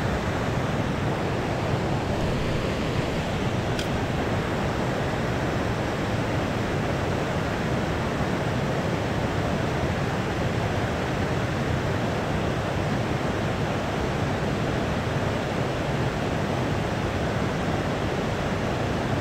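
Steady rush of river water pouring over a low concrete weir.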